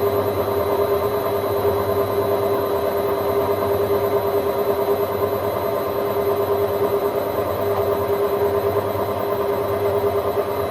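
Hotpoint Aquarius WMA50 washing machine spinning, a loud, steady whine over a rumbling hum.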